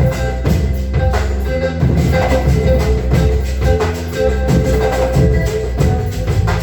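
Music with drums and percussion keeping a steady beat over a bass line and repeating short melodic notes.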